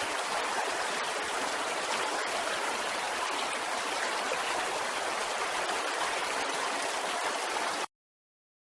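Sea waves: a steady, even rush of water that stops abruptly near the end.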